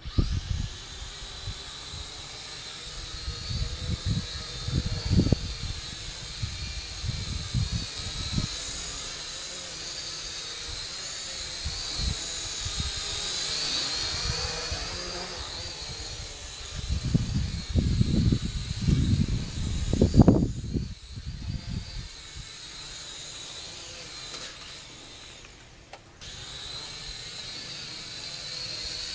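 Syma X5C toy quadcopter's small motors whining, the pitch wavering as it is flown, with strong wind gusting over the microphone. The whine stops for a few seconds after the strongest gusts, then starts again.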